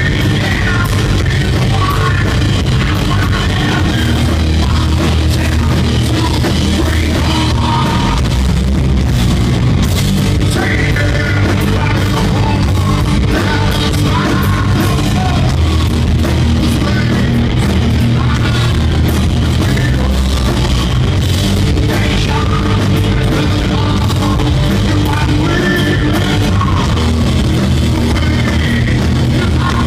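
Live rock band playing at full volume: electric guitar, bass guitar and drum kit, with a singer singing into a microphone over the top.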